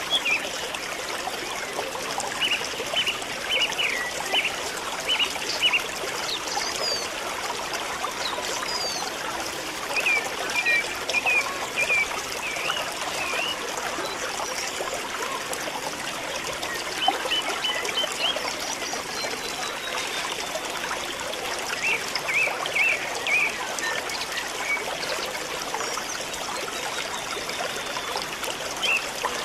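Steady rushing noise like a trickling stream, with short runs of high chirping calls several times over.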